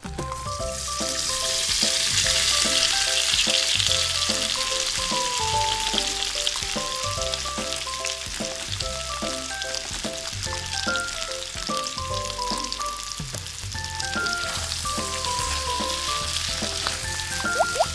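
Hot oil sizzling as breaded chicken pieces deep-fry in a small pan, strongest in the first few seconds after the pieces go in. A light melodic background music tune plays underneath.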